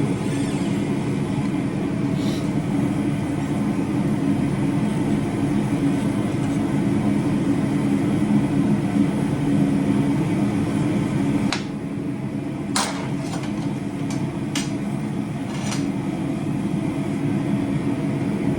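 A forge running with a steady roar and a constant low hum, with a few sharp metallic clinks about two-thirds of the way through.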